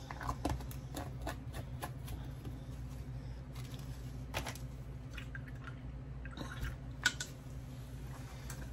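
Small clicks and taps of a hobby paint jar, brush and paper being handled on a workbench, the sharpest tap about seven seconds in, over a steady low hum.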